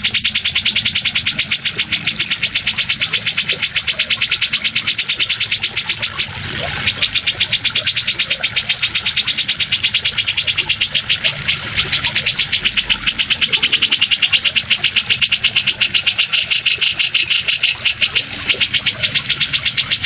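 Grey-cheeked bulbul (cucak jenggot) chattering in a fast, unbroken series of high, harsh notes, about five a second, with a brief pause partway through.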